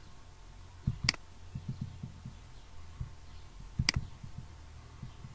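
Two sharp computer mouse clicks about three seconds apart, each with a few soft low knocks of desk handling around it.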